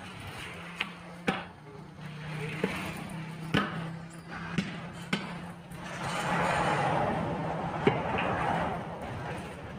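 Steel tire irons knocking against a truck wheel's steel rim as a tire is levered by hand, seven sharp metallic knocks spread irregularly, over a steady low hum. A louder rush of noise rises from about six seconds in to nine.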